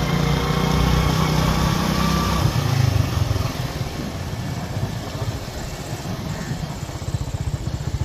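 A small engine running with a fast, even beat, quieter from about halfway through.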